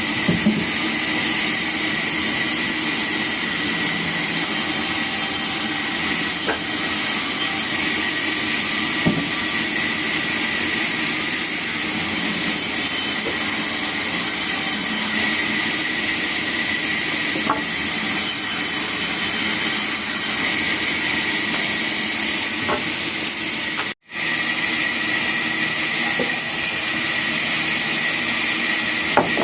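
Steady, loud hissing noise of running woodworking machinery, with a few faint ticks. It drops out for an instant about 24 seconds in and resumes unchanged.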